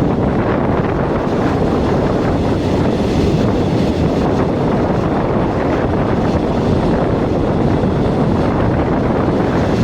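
Steady rushing noise of a moving express train, with wind buffeting the microphone.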